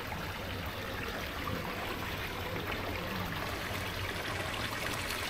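Water running and trickling steadily, with no clear strokes or pauses.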